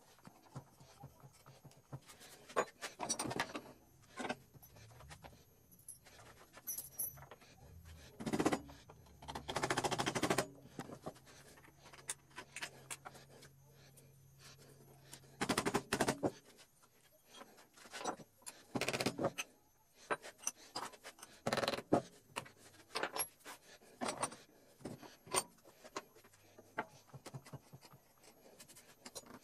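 Hand paint scraper dragged along a wooden board, stripping old paint in short, irregular scraping strokes with pauses between them.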